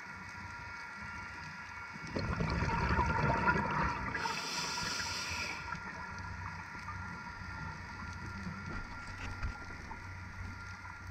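Underwater sound through a camera housing: a scuba diver's exhaled breath bubbling out about two seconds in, then a short hiss of the regulator, over a steady low rumble.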